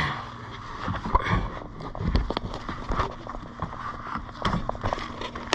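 Scattered knocks, scuffs and footsteps of a person moving about, irregular and uneven, over a faint steady low hum.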